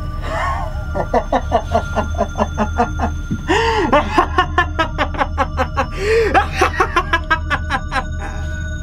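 A man laughing in long runs of quick "ha" bursts, about four or five a second, over a steady, low background music drone.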